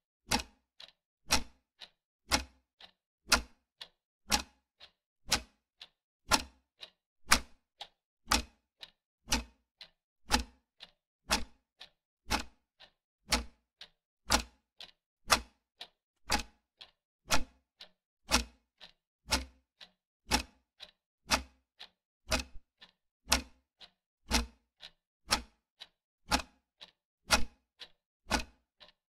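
Clock-ticking sound effect: a steady tick-tock of about two clicks a second, alternating loud and soft, marking a quiz countdown timer.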